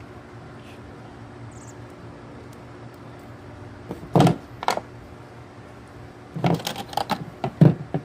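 Two clusters of sharp clicks and knocks, as of tools or small parts being handled, over a steady low hum; the louder, busier cluster comes near the end.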